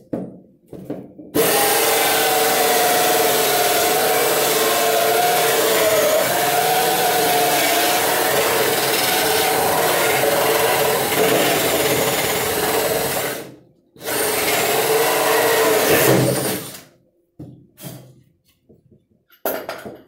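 Power drill with a hole saw cutting a round hole through a wooden panel: a long steady run of motor whine and cutting noise, a brief stop about two-thirds through, then a shorter second run. A few light knocks follow near the end.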